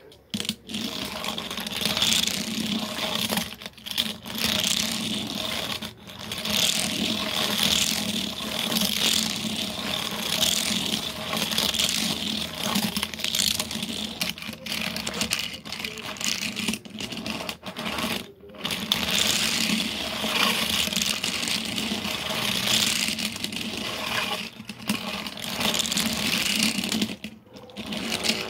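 Steady engine-like whirring, breaking off briefly a few times.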